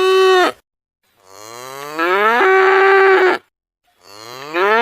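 Cow mooing: one moo ends just after the start, a full moo follows, and another begins near the end. Each call rises in pitch and then holds steady.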